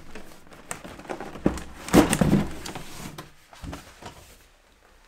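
Large cardboard kit box handled on a wooden workbench and its lid lifted off: scraping and rustling of cardboard, with a dull knock about two seconds in.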